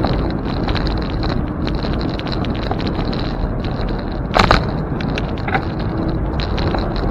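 Riding noise from a bicycle ride: wind rumbling on the camera microphone over tyre and road noise, with many small rattles and clicks and one louder clack about halfway through.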